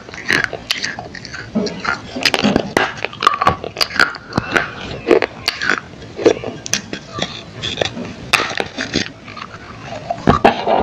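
Close-miked crunching of thin pieces of clay being bitten and chewed: a string of sharp, irregular crunches and mouth sounds.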